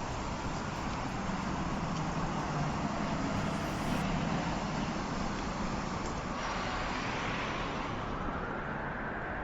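Steady tyre and road noise of a Volkswagen ID. Buzz electric van driving, with the hiss dulling a little about six seconds in.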